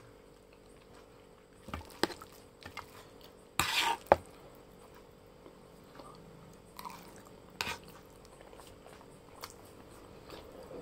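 Eating close to the microphone: a metal utensil clicking and scraping on a plate while scooping up noodles, with a few sharp clicks and one louder, longer scrape in the first half, then softer chewing sounds.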